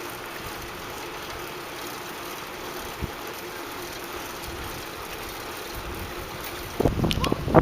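Steady rushing noise of riding along on a bicycle, with a short click about three seconds in; near the end, wind starts buffeting the microphone in loud low gusts.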